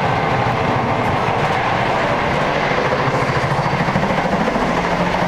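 Steady running noise of a passenger train carriage in motion, heard from inside the car.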